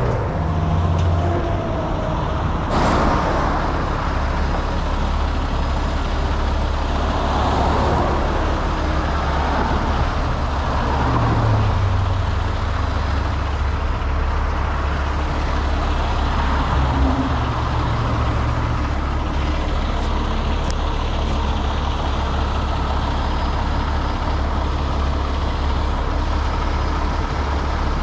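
Heavy truck's diesel engine running steadily at low revs, with a brief sharp noise about three seconds in.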